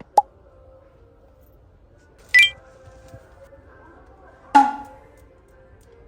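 Faint background music with a sharp click just after the start, then two short, bright clinks about two seconds apart, the second fading out.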